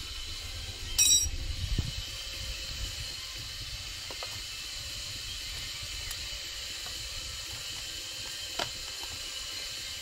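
A sharp metallic clink with a short high ring about a second in, then a few lighter clicks of metal tools or parts being handled, over a steady background hiss.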